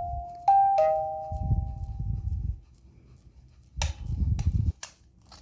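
Programmable music box's steel comb plucking two last notes about half a second in, which ring out and fade over about a second and a half. A low rumble runs under them. About four seconds in there is a cluster of sharp clicks over another low rumble.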